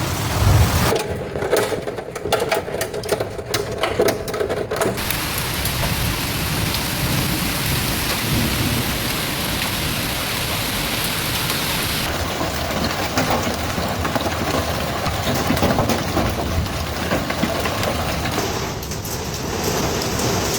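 Heavy rain with thunder. The sound changes abruptly several times as one storm recording cuts to the next.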